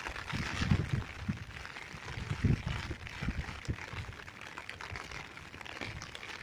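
Strong gusty wind buffeting the microphone in irregular low rumbles, over a steady hiss of wind and rain.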